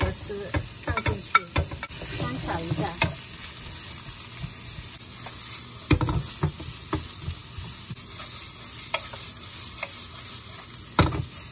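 Julienned carrot and jicama stir-fried in hot oil in a nonstick frying pan: steady sizzling, with a wooden spatula scraping and knocking against the pan, loudest about six seconds in and near the end.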